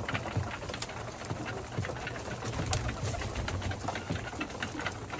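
A flock of domestic pigeons cooing in a low, steady hum while they feed, with many short sharp ticks of beaks pecking grain off the ground and an occasional wing flap.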